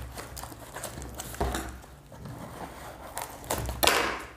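A small cardboard box being pried open by hand: cardboard flaps scraping and rustling, with louder rasps about a second and a half in and near the end.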